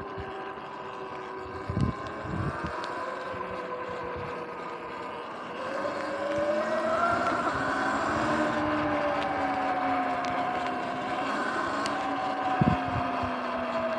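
Sur-Ron electric dirt bike's motor whining as it rides, rising in pitch as it speeds up about six seconds in, then holding steady, with wind rushing over the microphone. There are a few short thumps, one near the start and the loudest near the end.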